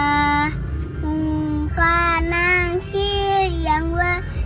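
A young girl singing an Islamic children's song about the ten angels, in short phrases with long held notes, over the low steady rumble of a car cabin.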